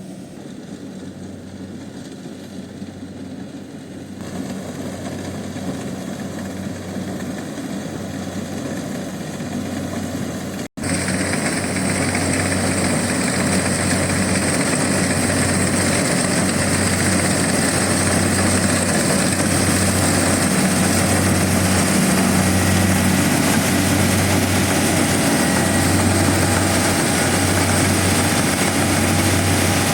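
Kubota DC70 rice combine harvester running steadily at work, a continuous engine drone over a low hum that pulses evenly. About ten seconds in the sound breaks off for an instant and comes back louder.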